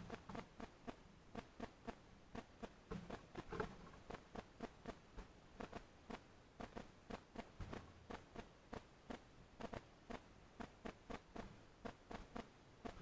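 Birds pecking and scratching at seed on a feeder: quick, uneven taps and clicks, about three or four a second, a few louder ones about three seconds in.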